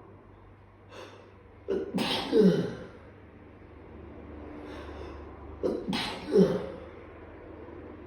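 A person sneezing twice, about four seconds apart, each sneeze a sharp burst followed by a voiced sound that falls in pitch; part of a prolonged allergic sneezing fit.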